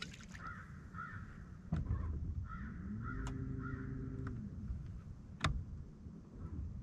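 A bird cawing: two harsh calls, then three more a couple of seconds in. A low hum rises and falls in pitch under the later calls, and a few sharp clicks sound, the loudest near the end.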